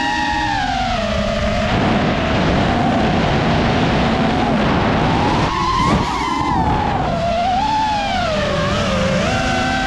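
Racing quadcopter's electric motors whining, the pitch rising and falling with the throttle. Between about two and five seconds in, a rushing noise covers the whine.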